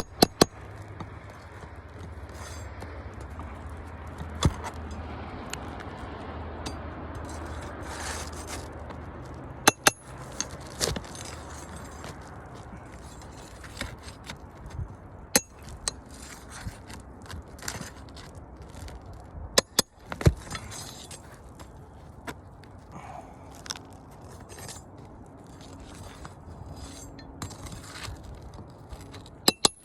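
Scattered sharp cracks, clicks and scraping from hand tools working asphalt roof shingles, the kind of sounds a shingle repairability test makes, over a steady low background rumble. A few cracks are much louder than the rest.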